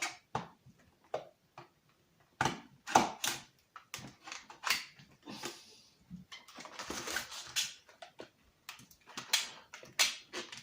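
Irregular clicks, taps and knocks with short rustles, from hard objects being handled and set down.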